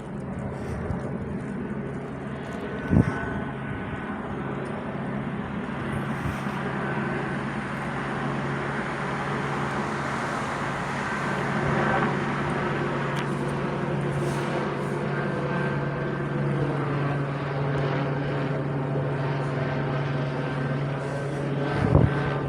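Helicopter droning steadily overhead, a steady engine-and-rotor hum that grows a little louder about halfway through.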